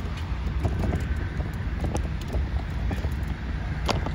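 Low, steady rumble of a jet airliner taking off, mixed with wind buffeting the microphone and a few sharp knocks, the loudest near the end.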